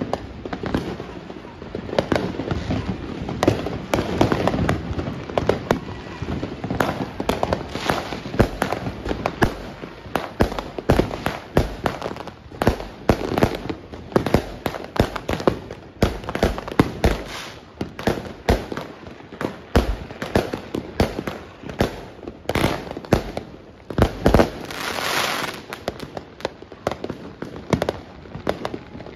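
Many fireworks and firecrackers going off at once across the neighbourhood: an unbroken barrage of overlapping bangs, pops and crackling, with a brief hissing rush about 25 seconds in.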